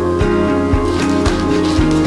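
Background music: plucked acoustic guitar over a steady beat.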